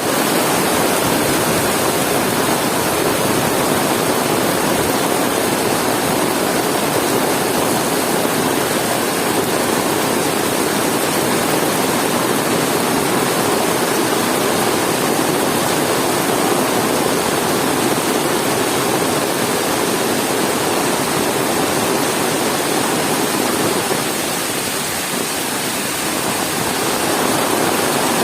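Steady heavy rain, an even hiss throughout, easing a little for a couple of seconds near the end.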